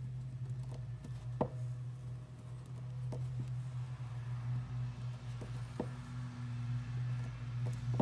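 Scattered soft clicks and taps of hands wrapping electrical tape around a record player's idler wheel, over a steady low hum.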